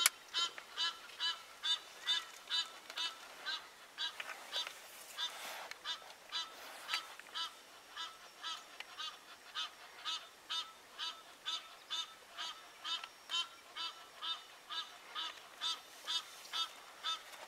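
An animal calling over and over: a steady series of short, pitched calls, about two to three a second, with a few other calls over them around the middle.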